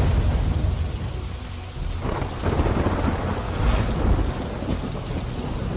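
Steady hiss of rain with low rumbles of thunder that swell about two seconds in and again near four seconds.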